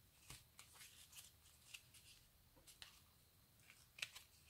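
Faint rustling and light ticks of ribbon and sewing thread being handled and pulled by hand, with a slightly louder tick about four seconds in.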